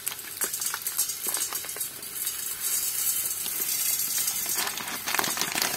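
Dry risotto rice poured from a plastic bag into a hot pot, the grains pattering and ticking onto the metal over the steady sizzle of onions and garlic frying in oil and butter.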